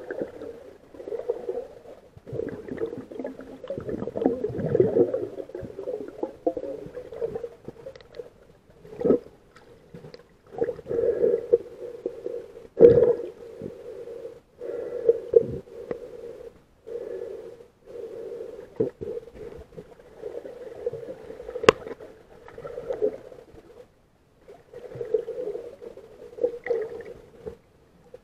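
Muffled underwater noise through an action camera's waterproof housing: a hollow hum that swells and fades every second or two, with a few sharp knocks.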